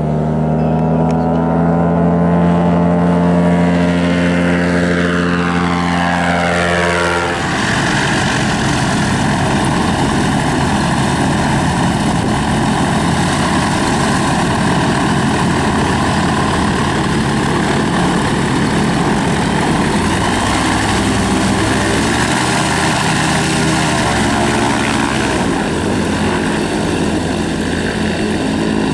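Ultralight aircraft engines and propellers running: first a trike's engine with its pitch sliding down over several seconds, then, suddenly at about seven seconds, a closer, noisier propeller engine running steadily, a high-wing light aircraft idling and taxiing.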